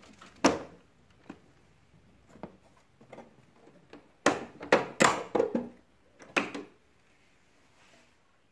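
Plastic clicks and knocks as the swing louver of an LG split-system indoor unit is worked off its clips by hand: a sharp snap about half a second in, a quick run of clicks and rattles from about four to five and a half seconds, and one more click shortly after.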